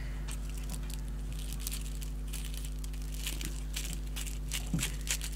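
Plastic cling film crinkling and crackling as it is handled and pulled from the roll, with a couple of light taps near the end.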